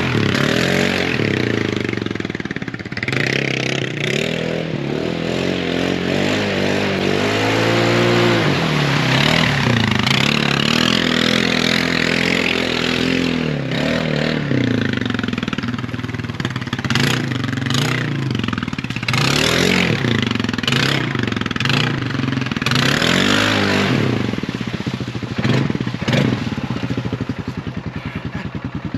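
Four-wheeler (ATV) engine being ridden hard, revving up and down again and again, with a rushing noise over it.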